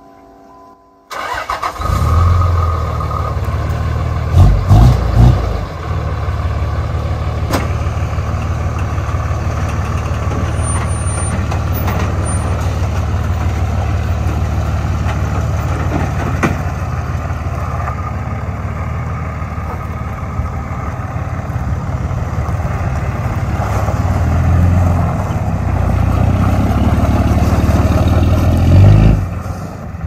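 A 5.9-litre Cummins turbo-diesel in a Dodge Ram pickup starting abruptly about a second in and then running steadily, with three short loud surges about four seconds in and a louder stretch near the end. The truck has had an intermittent misfire, as if running on half its cylinders.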